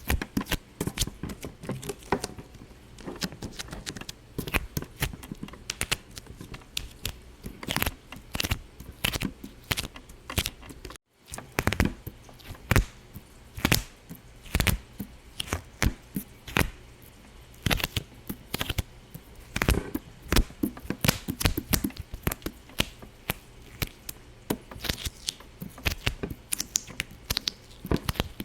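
Many sharp, irregular popping clicks, several a second, cutting out briefly about eleven seconds in.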